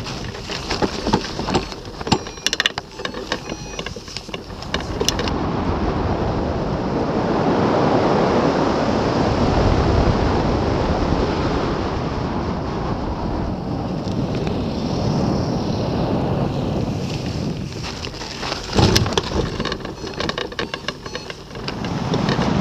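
Wind rushing over a hang glider's mounted camera microphone in flight, a steady roar of air noise. Scattered knocks and clatter break through in the first few seconds and again shortly before the end.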